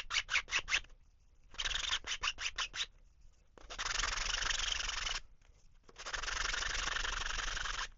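Super-fine sanding block rubbing over a 3D-printed crankbait body by hand: a few quick short strokes, then two longer, even rubs, with brief pauses between.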